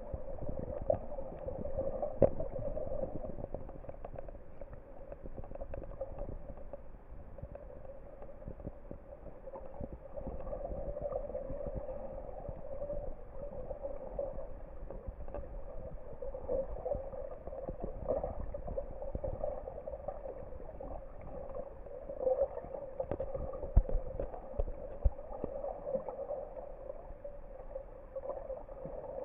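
Muffled underwater sound picked up by a camera held below the surface: a steady, dull wash of water noise with a few sharp knocks.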